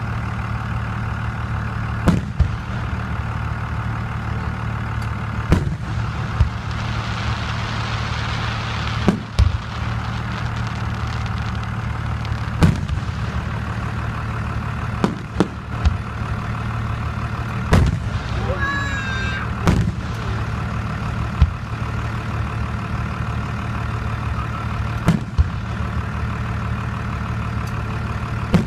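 Fireworks bursting: sharp bangs every two to four seconds, with a brief whistling glide a little past the middle, over a steady low hum like an idling vehicle engine.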